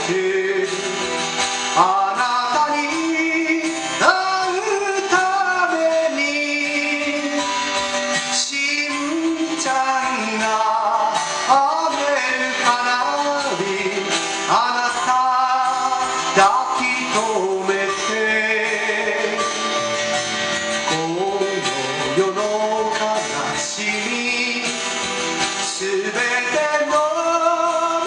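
A man singing to his own strummed acoustic guitar.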